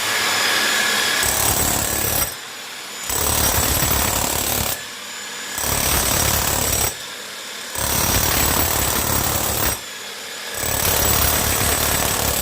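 Electric demolition hammer chiselling off a skirting board, running in repeated bursts of one to two seconds with short pauses between them.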